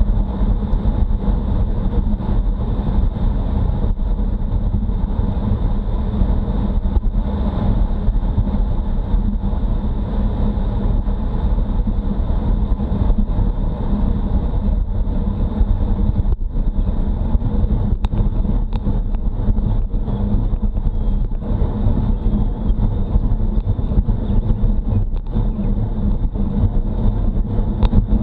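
Wind buffeting a Garmin Virb action camera's microphone on a road bike moving at speed, a deep, steady rush mixed with the bike's tyre noise on asphalt.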